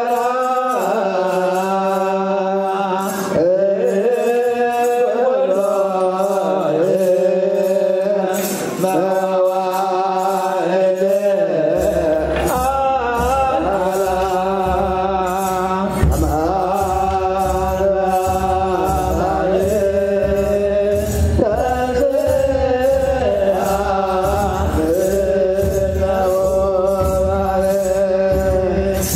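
Ethiopian Orthodox hymn: a single melodic voice line sung in a chant style over a steady low drone, with a low beat joining about twelve seconds in.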